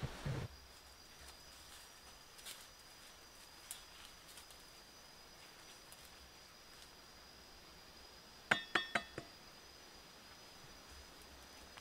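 Quiet forest ambience: a thin, steady, high-pitched insect tone, with a few faint scattered clicks. About eight and a half seconds in comes a quick run of four or five sharp, chinking clicks.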